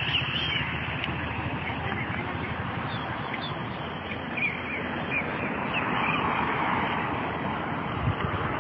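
Steady outdoor background noise, with a few short high chirps a few seconds in.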